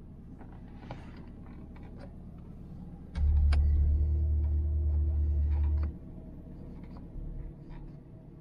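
Corvette C8 Stingray's V8 idling, heard inside the cabin as a steady low hum, with light clicks and taps. About three seconds in, a loud low rumble comes in sharply and cuts off just as sharply about three seconds later.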